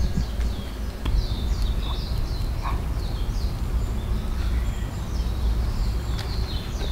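Birds chirping in quick short falling notes, several a second, over a steady low rumble of outdoor background noise.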